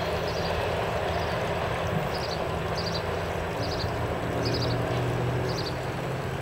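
MARC GP39H-2 diesel locomotive pulling its passenger train away under hard throttle: a steady low engine drone, with short high chirps repeating about once a second.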